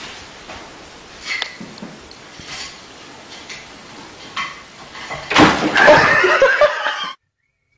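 Low room noise with a few faint taps, then about five seconds in a sudden clatter as a cat drops off a wooden chair back onto a tile floor. Right after it comes a person's loud laughter, which cuts off abruptly.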